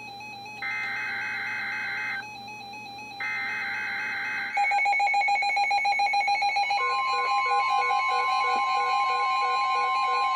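NOAA Weather Radio SAME header data tones sounding in two bursts of about a second and a half, with short gaps, announcing a flood warning. About four and a half seconds in, several weather radios go off together with pulsing alert beeps. About seven seconds in, the steady 1050 Hz warning alarm tone joins them.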